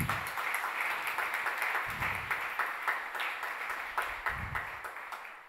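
Audience applauding: many hands clapping at once, fading away near the end.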